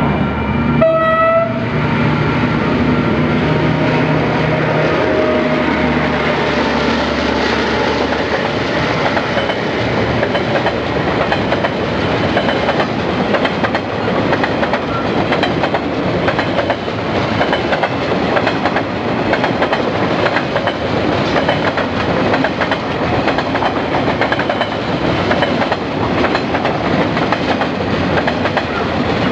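KiwiRail DL class diesel-electric locomotive passing with a log train: a short horn blast about a second in and the engine's drone over the first few seconds, then the loaded log wagons rolling by with steady clickety-clack of wheels over the rail joints.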